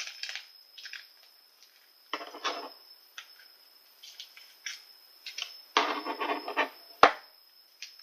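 Small candy-kit packet of chocolate sauce powder being opened and emptied into a plastic tray: rustling and scraping in short spurts, with a sharp tap about seven seconds in, the loudest sound.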